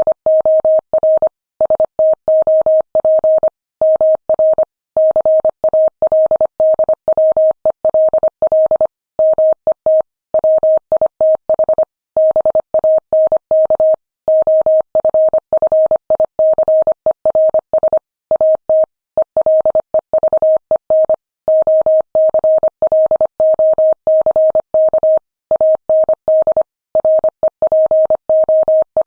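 Morse code sent as a single steady tone at 25 words per minute, keyed on and off in rapid dots and dashes with short gaps between letters and words.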